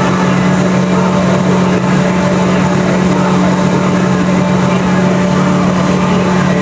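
Tow boat's engine running steadily at towing speed, a constant hum over the rush of the boat's wake.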